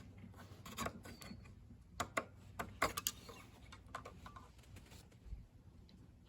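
Scattered light clicks and knocks of hands working at a Craftsman lawn mower's small engine to check the oil, with a quick cluster of taps around two to three seconds in.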